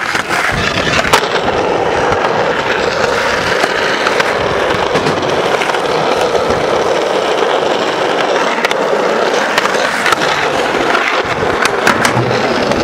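Skateboard wheels rolling steadily over concrete, a continuous rough rumble, with a few sharp knocks here and there.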